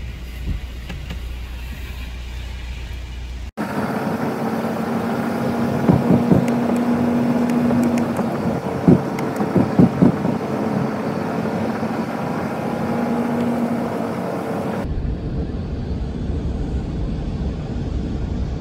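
Heavy rain falling steadily, with wind rumbling on the microphone. After a cut, the sound inside a car driving on a wet road: a steady engine and tyre hum with several sharp knocks around the middle. After a second cut near the end, a duller steady driving noise.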